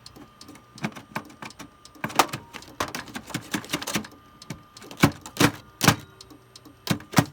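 Irregular sharp knocks and clacks of parts inside a Compaq desktop computer being hit, a few light ones early and the heaviest strikes between about five and seven seconds in.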